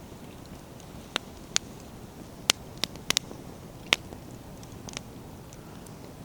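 Wood campfire burning: logs crackling, with about eight sharp pops and snaps over a low, steady rush of flame.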